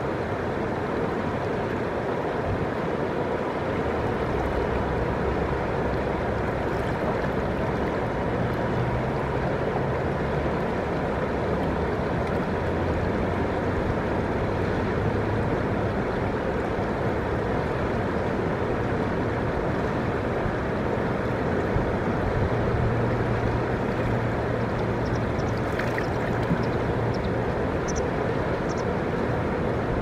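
Water of a river swollen after a typhoon, flowing steadily, with small waves lapping against the stones at the water's edge.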